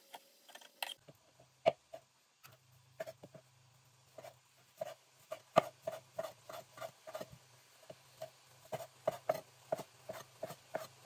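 Chef's knife slicing mushrooms on a bamboo cutting board: a run of short, light knocks of the blade on the board, sparse at first, then about three a second.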